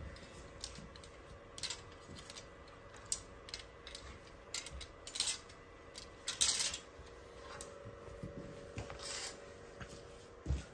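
Plastic clothes hangers clicking and scraping along a metal clothes rail as garments are pushed aside, with a few brief fabric rustles. The clicks come irregularly, and the longest, loudest scrape is about six and a half seconds in.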